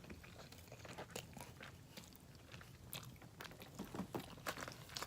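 A person chewing and biting food close to the microphone: quiet, irregular mouth clicks and small crunches.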